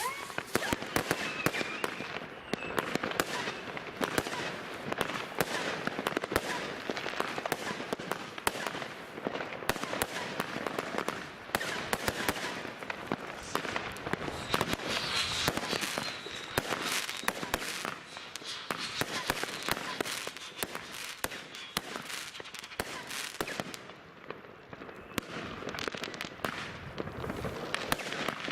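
New Year's Eve fireworks going off in dense, continuous volleys of crackling bangs and pops, with a few faint whistles mixed in.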